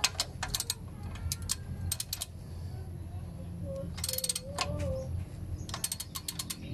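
3/8-inch drive socket ratchet clicking in short runs of quick clicks, about five runs, the busiest about four seconds in, as it turns a transmission drain bolt back in.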